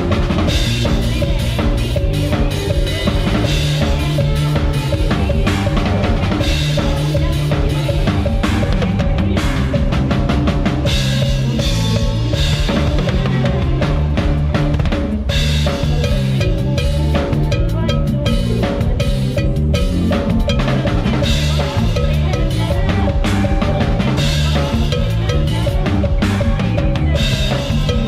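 Drum kit played live at close range, a dense fast groove of kick drum, snare and cymbals, with the rest of the band's music underneath.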